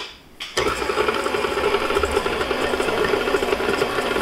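KitchenAid tilt-head stand mixer switching on about half a second in and running steadily, its flat beater turning through dry flour and sugar in the steel bowl.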